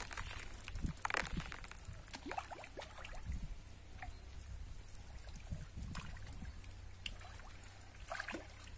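Fish feeding at the water surface, making small irregular splashes and drips as they snatch floating feed pellets. A steady low hum runs underneath.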